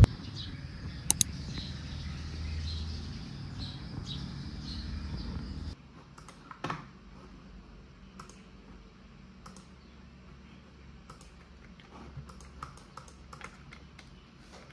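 Steady low rumble inside a car in slow traffic, with two sharp clicks about a second in. About six seconds in it cuts to irregular soft clicks of typing on a computer keyboard.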